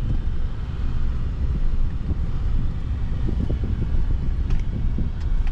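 Low, steady rumble of a pickup truck rolling slowly at low speed, heard from inside the cab, with some wind buffeting the microphone.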